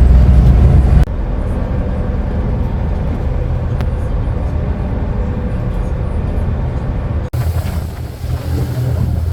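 Boat engine running with wind buffeting the microphone, in three short clips joined by sudden cuts about a second in and near the end; the first clip is the loudest, and the middle one carries a faint steady hum.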